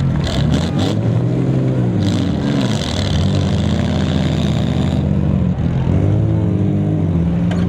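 Several six-cylinder demolition derby car engines running and revving at once, their pitches rising and falling over one another, with a few sharp knocks within the first second.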